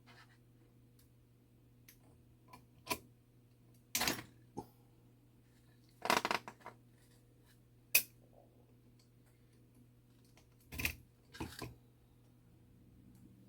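Small metal clicks and clinks of tools and parts against a mechanical clock movement as a small retaining clip is worked off. There are a handful of separate sharp clicks and two short rattling clusters, the loudest single click about eight seconds in.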